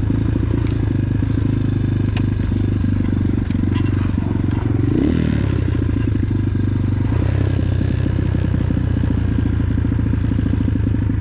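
X-Pro Titan 250cc dirt bike's single-cylinder four-stroke engine running steadily under way, its pitch dipping and climbing back about five seconds in. A few sharp clicks and rattles sound over it.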